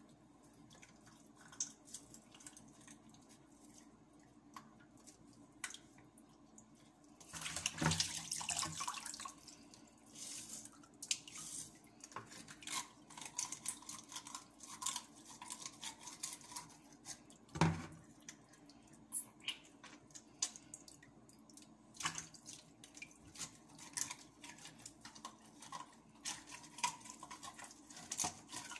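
Wet handling of a whole fish being cleaned over a basin of water: dripping and splashing with many short clicks and scrapes. There is a louder spell of splashing water about eight seconds in and a single knock a little after halfway.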